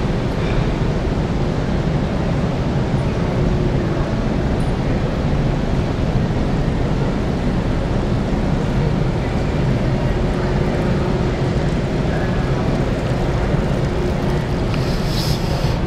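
Steady low rumbling background noise with a faint steady hum, and a brief hiss near the end.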